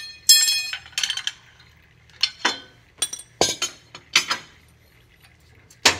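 A rubber mallet striking the steel piston nut and wrench on a skid steer hydraulic lift-cylinder rod: a string of about nine hits, the first few ringing metallically. The blows are knocking loose a nut that can be swedged onto the piston.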